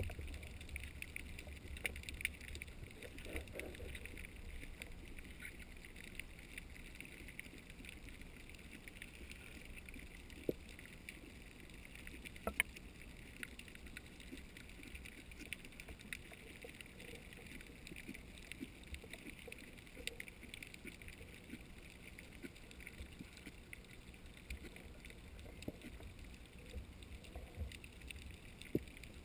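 Faint, muffled underwater ambience picked up by a camera submerged in shallow water: a steady low rumble and hiss with a few scattered sharp clicks.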